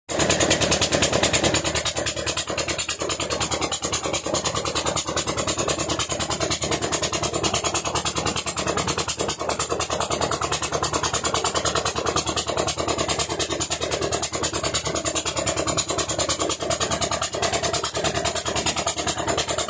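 A heavy vehicle's diesel engine idling steadily, with a fast, even chugging pulse.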